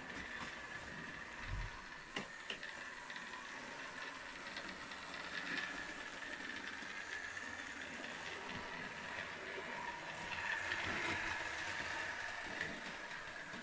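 Model railway locomotive running on the track: a steady whine from its small electric motor, louder near the end, with the wheels rolling on the rails. A low bump about a second and a half in and a few light clicks.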